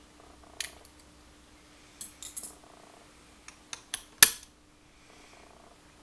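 Small metal clicks and clinks of lock picks against a clear acrylic practice padlock as the tool is pulled out and the lock is handled, with the loudest sharp click about four seconds in, over a faint steady hum.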